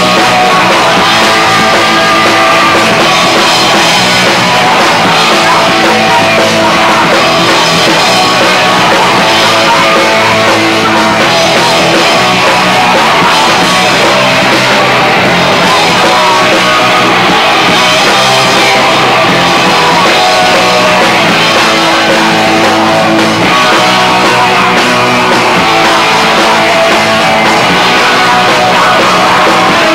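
Hardcore punk band playing live at full volume: distorted guitar, bass guitar and drums, with a singer shouting over them.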